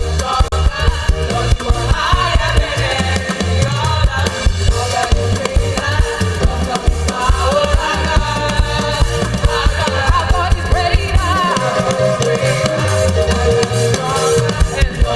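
Live gospel praise band playing an upbeat song with drum kit and guitar, with singing over it.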